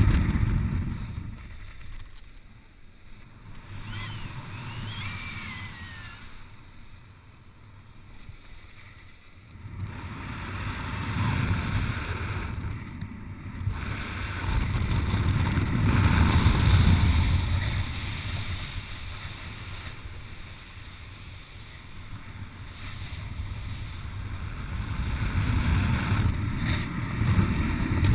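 Wind noise buffeting the microphone of a paraglider's camera, swelling and fading in slow waves as the pilot spins in a helicopter manoeuvre.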